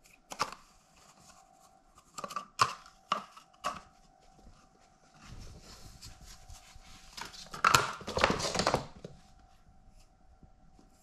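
Crumpled paper ball rustling and crackling in a cardboard toilet-roll tube as a cat paws at it: a few short scratchy crackles, then a longer, louder burst of crinkling about eight seconds in.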